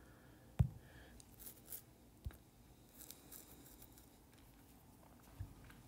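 Quiet room tone broken by a few faint handling noises: a dull thump under a second in, a lighter tap a little after two seconds, and brief soft rustles.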